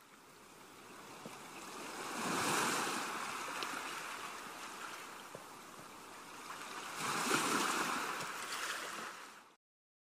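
Gentle sea waves washing up on a sandy beach: the rush of water swells twice, about five seconds apart, as each small wave breaks and runs up the sand. The sound cuts off suddenly near the end.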